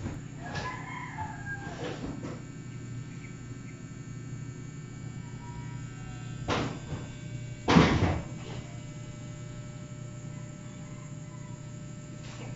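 A rooster crowing in the distance near the start, over a steady low hum. Two sudden thumps come about halfway through, the second the loudest sound here.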